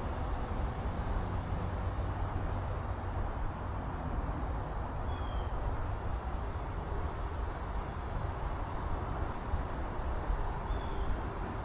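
Wind buffeting an action camera's microphone, a steady gusty rumble with a rushing hiss above it. Two faint short high chirps sound about five seconds in and near the end.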